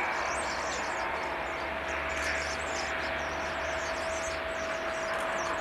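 Jet noise from a Boeing 787-9's Rolls-Royce Trent 1000 engines as the airliner rolls out on the runway after landing: a steady roar with a steady whine in it.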